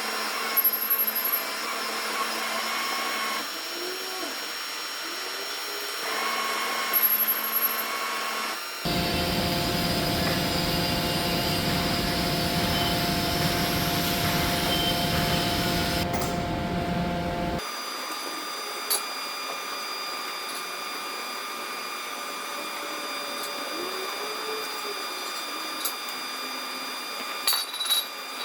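Electric overhead crane hoist and trolley motors running with a steady whine while lifting a heavy forklift mast. A louder stretch with a deep rumble starts about nine seconds in and cuts off abruptly at about seventeen seconds, leaving a steadier hum with a few light clicks.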